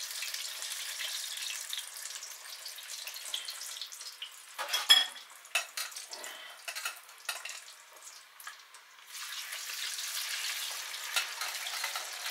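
Potato chips deep-frying in a pot of hot oil, just dropped in for their first fry: a steady high sizzle. About halfway through come a few sharp knocks, one of them loud, and the sizzle dips for a moment before it comes back near the end.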